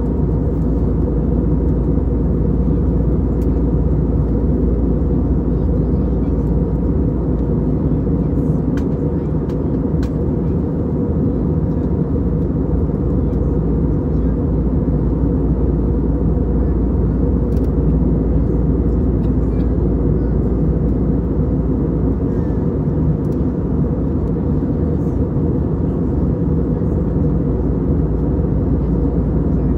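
Steady cabin noise of an Airbus A320neo in the climb: a constant low roar of airflow and its two CFM LEAP-1A turbofans at climb power, with a faint steady whine above it.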